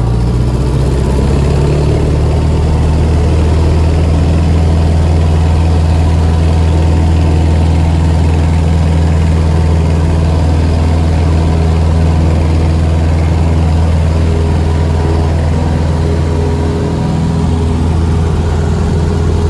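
A 1946 Cessna 140's four-cylinder engine and propeller running steadily at low taxi power, heard from inside the cockpit as a loud, even drone.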